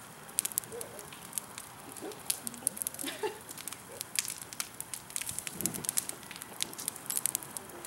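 Wood and brush bonfire crackling steadily, with many irregular sharp pops and snaps.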